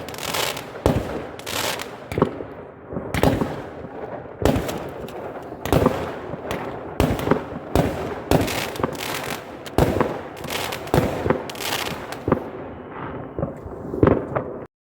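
Fireworks bursting: a fast, irregular run of sharp bangs, roughly two a second, each with a short echoing tail. The bangs cut off abruptly near the end.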